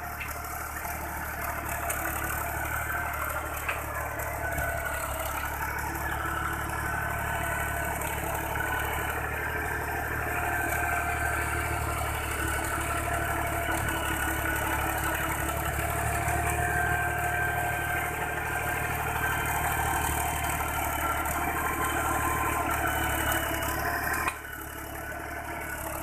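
Fiat 480 tractor's three-cylinder diesel engine running steadily under load as it pulls a tined cultivator through dry soil. The level drops suddenly near the end.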